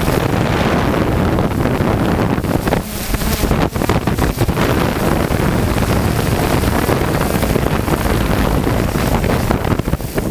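Motors and propellers of a DJI F550 hexacopter running, heard from the camera it carries, with wind buffeting the microphone as it descends. A steady, loud rushing noise that wavers in level.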